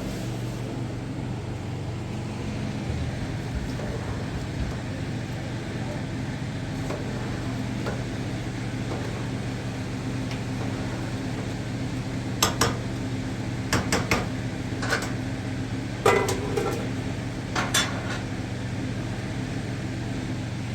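A steady low mechanical hum, like a motor or engine running, with a handful of sharp clinks, as of metal or dishes knocking, in the second half.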